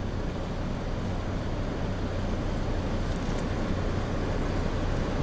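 Truck engine idling with a steady low hum, under an even rushing noise.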